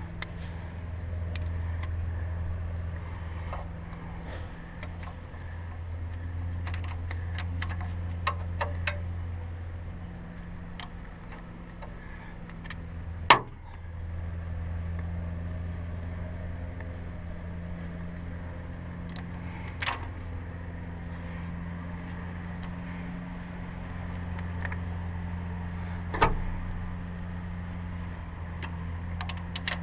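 Hand tools clicking and clinking against metal in a diesel engine bay while a fuel injector clamp and its bolt are worked into place, with one sharp knock about halfway through and two smaller ones later, over a steady low hum.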